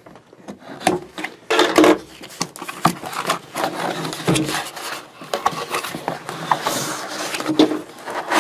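Cardboard box being opened by hand: a tool run along the taped seam, then the flaps and cardboard insert pulled open, with irregular scraping, rubbing and knocks of the cardboard.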